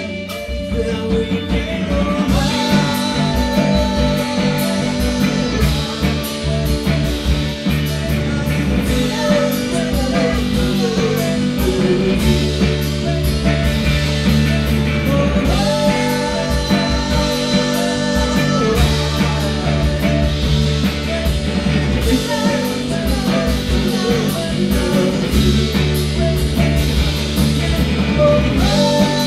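Rock band playing a song, with electric guitar, bass and drums under a singing voice.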